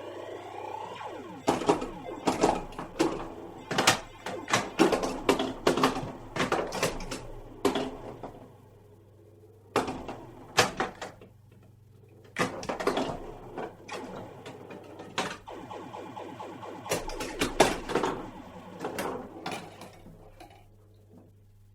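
Pinball machine in play: flippers and bumpers knocking in quick runs of sharp clacks, with pauses of a second or two between runs, over a steady low hum. A rising tone is heard in the first second.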